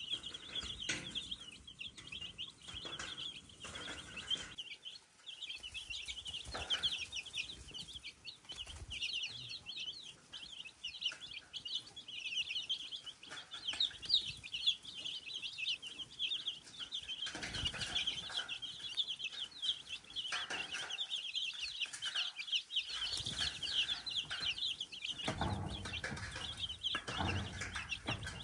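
A crowd of baby chicks peeping without a break, many short high cheeps overlapping. Scattered rustling and dull knocks come in now and then, heaviest near the end.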